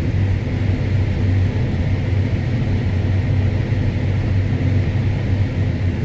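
Combine harvester running steadily under load while shelling corn, heard from inside the cab: a constant low drone with a faint high whine above it.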